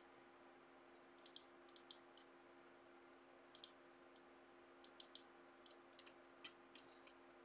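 Computer mouse clicking: about a dozen short, sharp clicks scattered through, several in quick pairs like double-clicks, over a faint steady hum.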